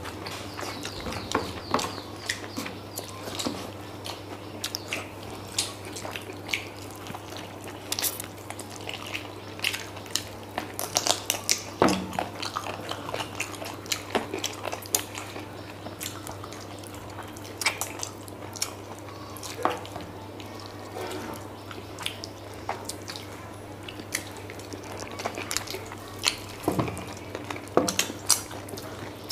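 Two people eating chilli chicken and rice by hand: scattered wet mouth clicks and smacks of chewing and biting at chicken leg pieces, with fingers scraping the paper plates, over a steady low hum.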